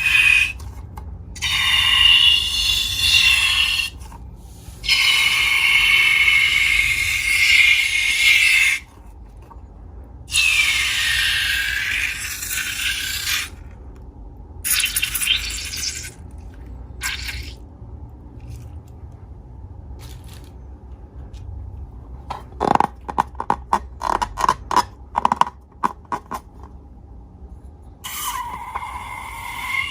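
Rubber balloons rubbed and squeezed by hand, squeaking in several long stretches. A run of quick sharp clicks and snaps comes later.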